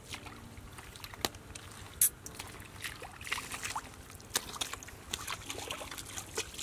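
Bare feet squelching and splashing in wet mud and shallow water, in irregular steps, with a few sharp taps; the loudest is about two seconds in.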